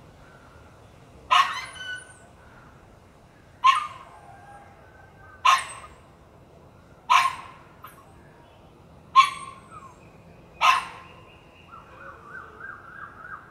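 Six short, loud animal calls, one every second and a half to two seconds, with faint birdsong between them and a soft trilling call near the end.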